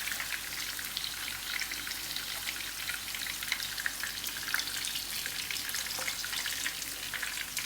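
Hot oil sizzling steadily with many small crackles and pops in a pan of shallow-frying chicken patties.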